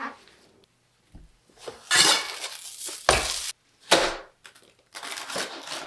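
Loud crunching of a crisp, griddle-toasted crunch wrap in four or five bursts, the crisp shell breaking as it is cut or bitten.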